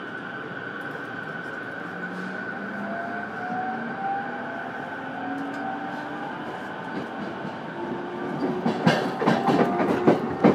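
An E231-series electric commuter train heard from inside a motor car. The motor whine climbs steadily in pitch over a steady running noise as the train gathers speed. From about eight and a half seconds in, the wheels clatter loudly and rapidly over rail joints or points.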